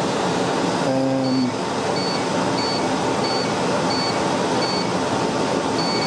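COLZER commercial dehumidifier running with a steady loud fan noise, which its owner calls a racket. Its control panel gives short electronic beeps about every two-thirds of a second, the last one longer, while its settings are being worked out.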